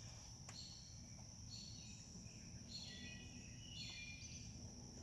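Quiet outdoor background of insects: a steady high trill, with short chirping calls about once a second. There is a faint click about half a second in.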